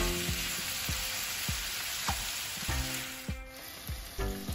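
Marinated chicken pieces sizzling in hot ghee in a frying pan, over background music with a steady beat. The sizzle grows fainter about three seconds in.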